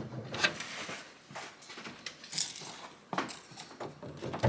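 Short, irregular rubbing and scraping sounds of hands working rubber washer hoses onto the plastic windshield washer jets' connectors.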